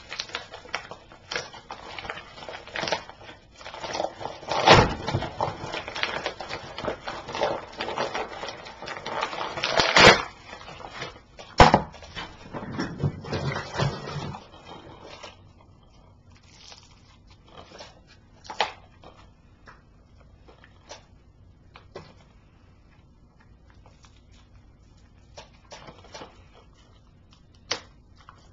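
A yellow padded mailer being torn open and crinkled by hand, with loud rips about five, ten and twelve seconds in. After about fifteen seconds it gives way to sparse light clicks and rustles as the DVD case is handled.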